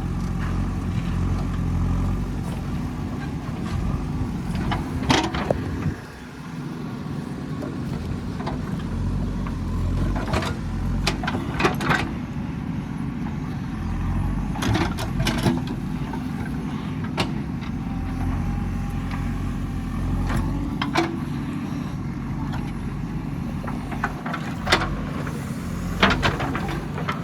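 Digging machine's diesel engine running steadily under load. Sharp clanks and knocks from the digging are heard every few seconds.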